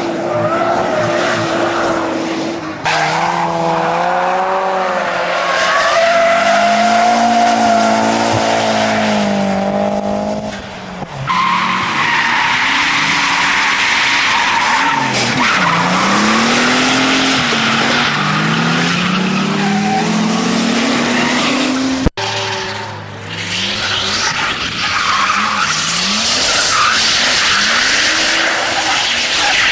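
Cars drifting: engines revving hard, pitch rising and falling as the throttle is worked, over continuous tyre squeal and scrub. The sound jumps abruptly at a few points as one car's pass gives way to another's.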